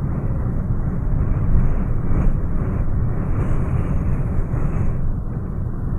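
Strong hurricane wind blowing: a dense, steady rush, heaviest in the low rumble, with small swells in strength.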